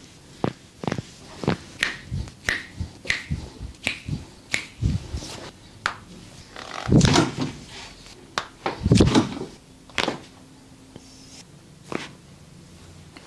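Joints cracking under a massage therapist's hands: a quick run of sharp pops, about two a second, then two louder, longer cracks in the middle, and a few more single pops near the end.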